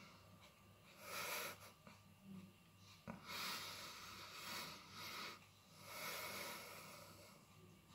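A man breathing heavily in and out through his mouth, several long, noisy breaths a second or so each, as he suffers the burn of a super-hot 7 Pot Douglah chilli.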